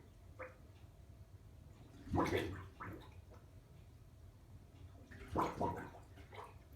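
Unexplained water bubbling and gurgling in short bursts that come back every few seconds: a loud gurgle about two seconds in and another about five seconds in, each followed by a few smaller bubbles.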